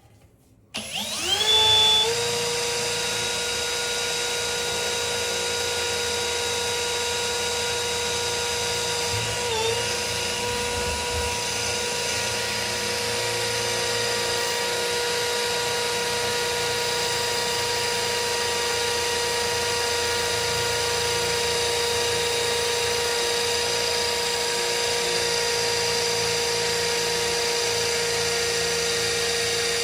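Cordless drill spinning a 1 mm drill bit at high speed, drilling a mild steel plate. It starts just under a second in with a quick rise in pitch, then runs with a steady whine; the pitch dips briefly about nine and a half seconds in.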